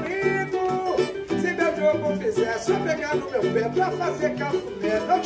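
Pagode samba played live on a cavaquinho and a nylon-string acoustic guitar, strummed together, with a man's voice singing the melody.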